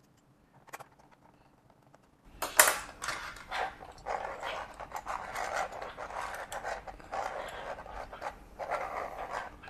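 The plastic gear train of a 3D-printed model V-twin engine being turned by hand, clattering and scraping unevenly from about two seconds in, after one small click. It is a test turn of the gears after a repair to a broken, slipping gear shaft.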